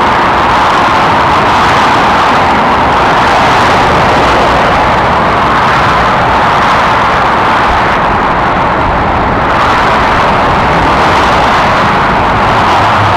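Heavy motorway traffic of cars, vans and lorries passing below on a multi-lane motorway: a continuous wash of tyre and engine noise, easing slightly about eight seconds in.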